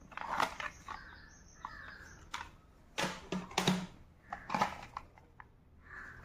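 Plastic audio cassette cases being handled, giving irregular clicks and clacks as they knock together.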